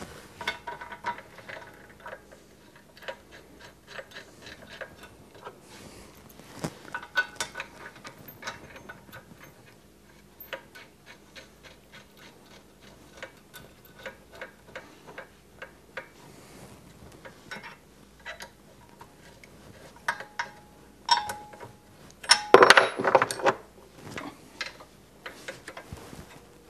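Ratchet wrench clicking in quick runs as bolts are driven in to fasten a lathe extension bed, with light metallic clinks of tools and parts. A louder metal clatter comes near the end.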